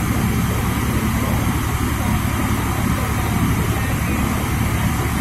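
Diesel engines of a Swaraj 855 and a Sonalika DI 55 tractor running hard under load as the two pull against each other in a tug-of-war: a steady low rumble with a fast firing beat.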